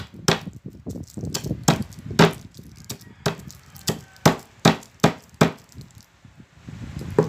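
A dozen or so sharp, irregular knocks, about two a second: wrapped menthol candies being pounded to crush them.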